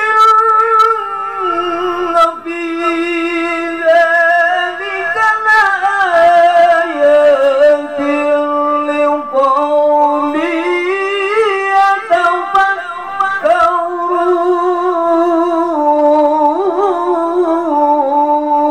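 A man reciting the Quran in the melodic, drawn-out tilawah style, amplified through a handheld microphone: long held notes with melismatic ornaments that step and glide in pitch, with only a few short breaths.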